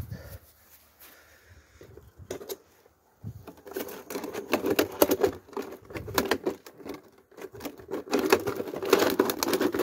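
Plastic wrapping crinkling and crackling close to the microphone, in two long stretches in the second half after a few single crackles.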